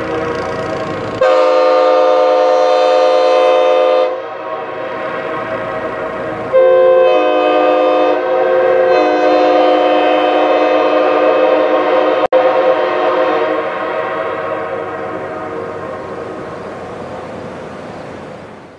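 Sand cast Airchime K5H five-chime train horn, the parts-built 'mutt' with a dominant #4 bell, sounding its chord in two loud blasts, about a second in and again from about six and a half seconds, with some bells changing partway through the second. Between and after the blasts the chord carries on more quietly and fades slowly, echoing off the mountains.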